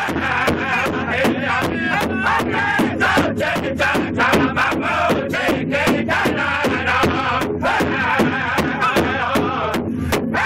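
Powwow drum group singing together in loud chanting voices while beating a large hide-headed powwow drum in unison, a steady beat of about three strokes a second.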